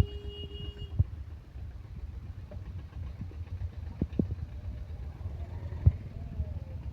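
A low, steady engine-like rumble, broken by a few sharp knocks about a second in, around four seconds in and near six seconds.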